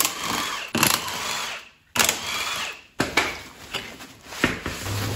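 Cordless impact wrench running in several bursts of about a second each, taking the lug nuts off a front wheel.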